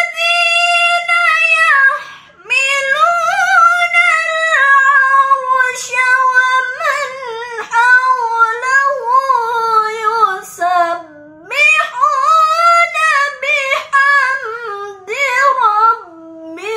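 A young woman's voice chanting Quran recitation (tilawah) in long, ornamented melodic phrases with held, wavering notes. She takes short breaths between phrases, about two seconds in and again about eleven seconds in.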